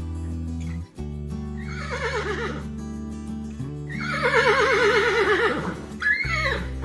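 Horse neighing: a shorter whinny about a second and a half in, then a longer, louder, quavering whinny about four seconds in, each falling in pitch, with a brief call near the end. Background music plays underneath.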